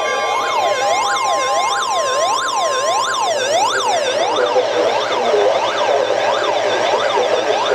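Electronic siren-style alert tone from a weather alert radio, sweeping up and down about twice a second. It signals a severe thunderstorm warning. For the first three seconds a steady high tone, the NOAA Weather Radio warning alarm tone, sounds with it.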